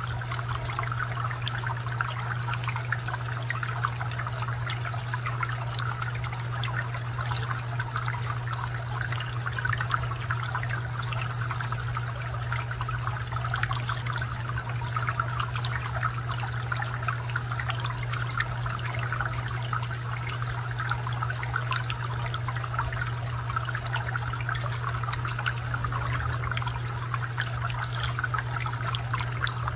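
Garden fountain water trickling and splashing steadily, over a steady low hum.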